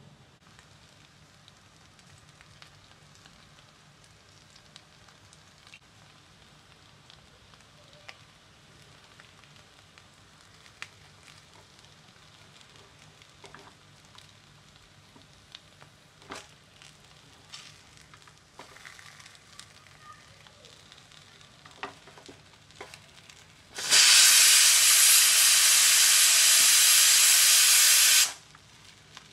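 Potato tikkis shallow-frying in a little oil on a non-stick tawa: faint scattered crackles and pops for most of the time, then a loud, even sizzle for about four seconds near the end that starts and stops abruptly.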